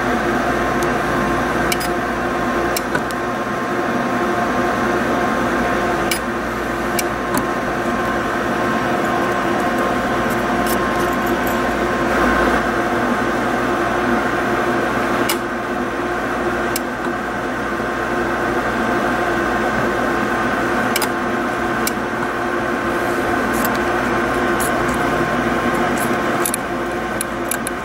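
Steady machine hum with several held tones, broken every second or few by irregular sharp clicks as the micro weld head fires to weld fine gold ribbon to a small pad.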